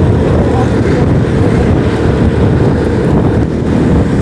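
Motorcycle riding noise: steady wind rush buffeting the microphone over low road and engine rumble.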